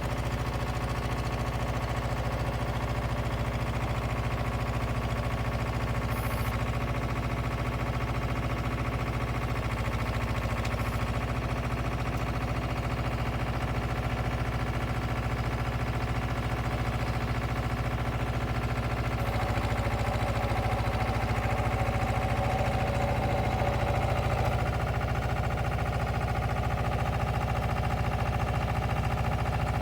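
Diesel engine of a Bitelli BB 611 asphalt paver running steadily, growing a little louder from about twenty seconds in.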